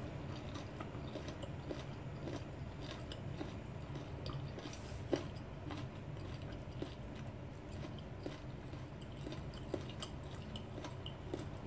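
A person chewing a raw lemon slice with its peel, mouth sounds with many small crunching clicks and one sharper click about five seconds in, over a faint low hum.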